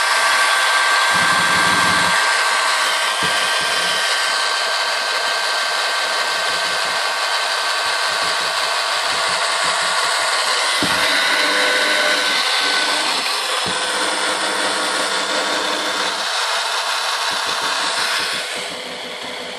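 Old 7.2-volt cordless drill running steadily with a motor whine, spinning a plastic trolling-motor propeller on threaded rod in the water, its batteries nearly worn out. The sound eases off near the end.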